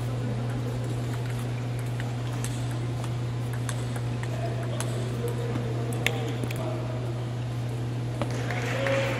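Celluloid-style table tennis ball clicking sharply off bats and table, a few irregularly spaced hits, over a steady low hum. A brief swell of crowd noise comes near the end.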